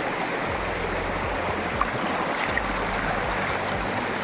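Steady rush of flowing canal water, with an on-and-off deep low rumble underneath.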